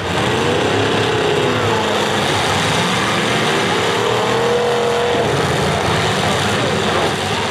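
Several demolition derby cars' engines revving together over a dense, steady din, their pitch rising and falling as they drive and push.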